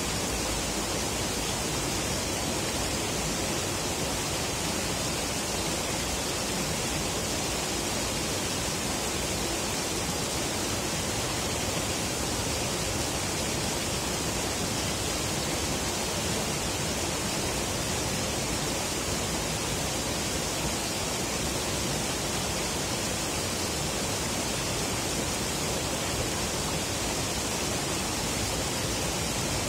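Steady rushing noise of river water flowing, even and unbroken, with no separate events.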